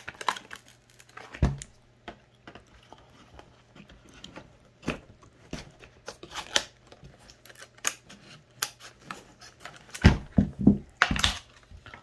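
A multi-tool's plastic blister pack being handled and opened: scattered crinkles, snaps and clicks of the stiff plastic and card, with a cluster of heavier knocks near the end.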